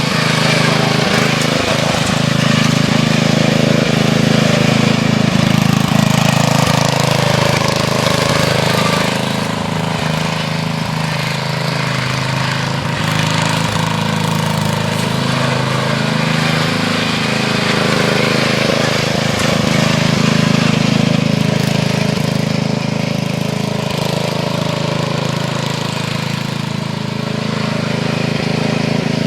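12 hp MTD lawn tractor engine running continuously with a rough clatter, its level swelling and easing a little as it works under load.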